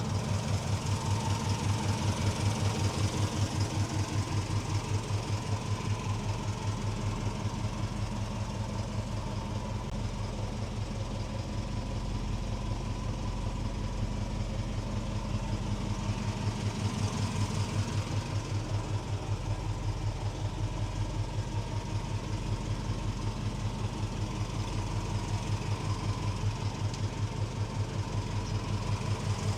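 1965 Ford Mustang GT's 289 V8 with a four-barrel carburettor idling steadily, with an even pulse to its exhaust note.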